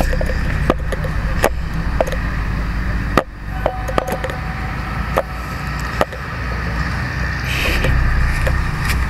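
Footsteps rustling through dry undergrowth, with scattered sharp snaps and clicks about once a second over a steady low rumble.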